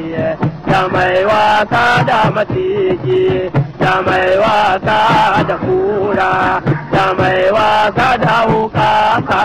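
Hausa praise song: a man's voice sings a chanted line with held, wavering notes over quick, steady drum strokes.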